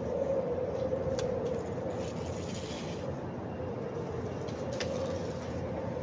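Wind blowing through a narrow gap between high-rise buildings, making one sustained, slightly wavering moaning tone over a rush of wind noise, the creepy sound of horror films; the tone is strongest at the start and dips a little through the middle.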